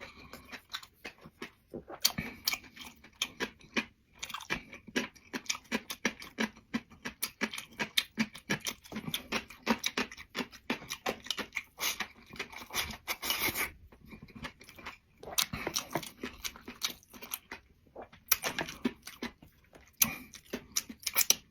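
Close-up chewing of food, with crisp crunching and wet clicking mouth sounds in irregular runs, pausing briefly several times.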